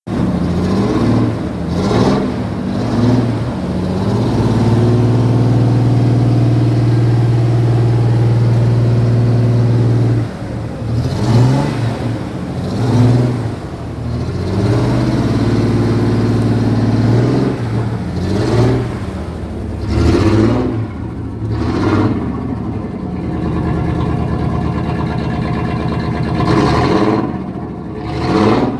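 Ford Ranger STX V6 engine being revved hard and loud: a long hold at high revs, then a series of quick throttle blips and a couple more held revs, dropping back toward idle between them.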